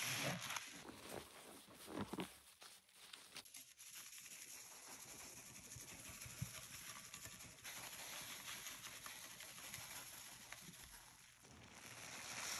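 Rubber-gloved hands working a soap-loaded sponge: soft crackling and squishing in the first few seconds, then only a faint steady hiss.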